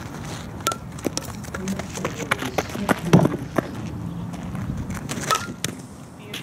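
A softball bat striking the ball twice, about a second in and again near the end, each a sharp crack with a short ring. Scattered smaller clicks and knocks fall between the hits over a low steady rumble.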